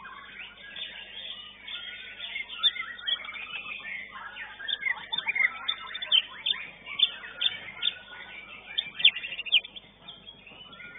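Caged competition songbird singing a rapid, varied run of chirps, slurred notes and sharp whistles, thickest from about two seconds in and easing off near the end.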